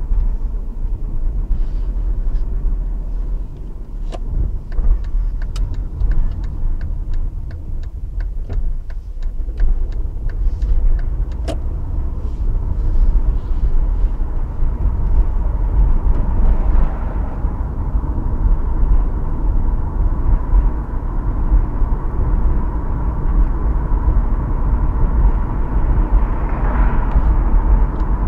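Engine and road noise heard from inside a moving vehicle's cabin: a steady low rumble, with light rattles and clicks through the first dozen seconds and a faint whine that grows stronger about halfway through.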